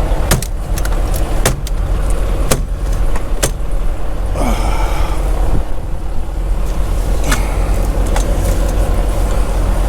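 Semi truck's diesel engine idling steadily, with several sharp clicks and knocks over it and a short falling squeak about halfway through.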